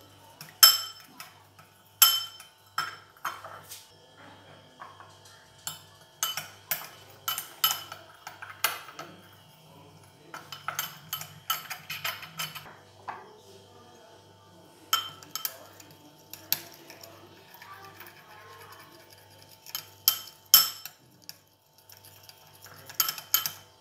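Metal teaspoons stirring food colour and water in small glass bowls, clinking sharply against the glass in short runs with pauses between. Each clink rings briefly.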